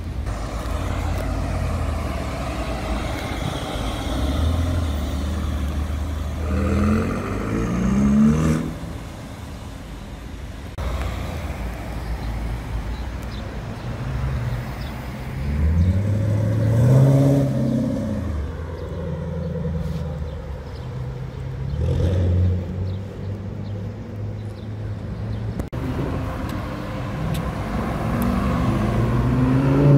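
Sports car engines accelerating hard on a city street, their notes climbing through the revs in several separate runs, one rising and falling as a car passes; a few runs cut off suddenly.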